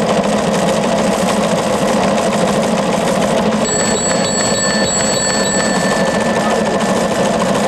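Teleprinter clattering steadily as it types out a telegram: a fast, even mechanical chatter. A faint high whine joins it for a couple of seconds midway.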